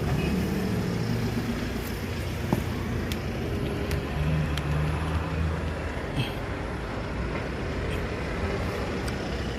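Steady road-traffic noise with a vehicle engine humming, swelling a little twice, and a few light clicks.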